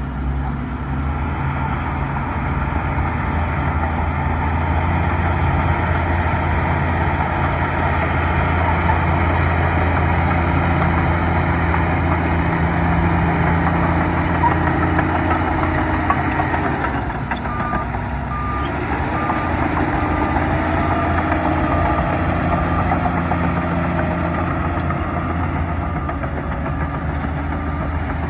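Bulldozer's diesel engine running steadily under load. Partway through the engine note dips and shifts, then a reverse alarm starts beeping in a steady repeated pattern as the machine backs up.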